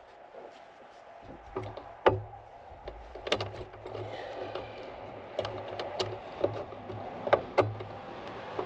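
Small sharp clicks and taps of wire terminals and a key switch being handled and fitted onto the switch posts, about a dozen in all, the loudest about two seconds in, over a steady low hum that starts about a second in.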